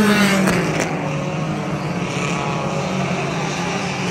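Hobby stock race cars passing at racing speed. Their engine notes drop in pitch as the nearest cars go by at the start, the loudest moment, then several engines carry on at a fairly steady pitch.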